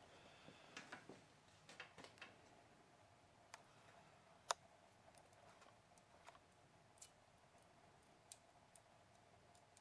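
Faint, scattered small metallic clicks as valve keepers are fitted onto a valve stem under a compressed valve spring, with one sharper click about four and a half seconds in.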